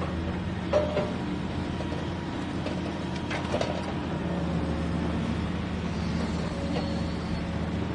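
A vehicle engine running steadily at idle, with a few short knocks about a second in and again around three and a half seconds in.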